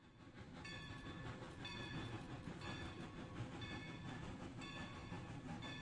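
Train running with a low rumble that fades in at the start, and a ringing tone repeating about once a second over it.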